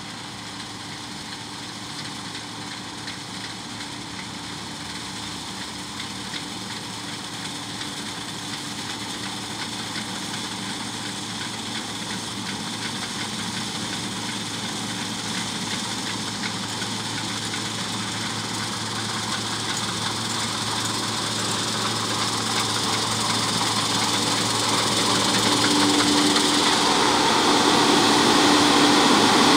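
Diesel engine of a large harvest machine running steadily and growing gradually louder as it approaches, a rushing noise building over it in the last third.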